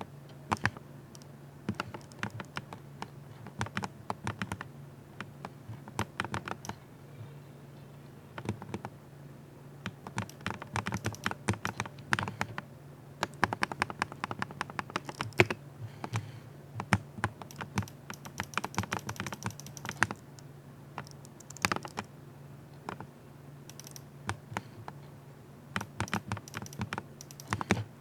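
Typing on a cheap $5 60% keyboard: fast runs of sharp key clicks in bursts with brief pauses, a crackly rattle likened to deep-fried bacon. A steady low hum runs underneath.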